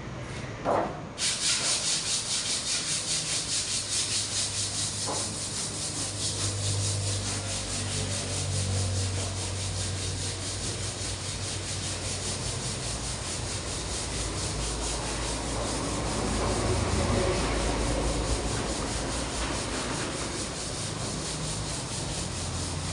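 120-grit sandpaper rubbed back and forth over cured body filler on a car panel, smoothing the filled dent. It starts about a second in and goes in steady, even strokes about twice a second.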